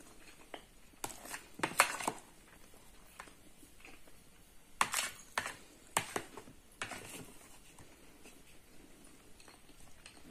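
A metal spoon clicking and scraping against a plastic food container and plate as curry is scooped out and served onto rice: a cluster of sharp clicks about a second in, and another around five to seven seconds in.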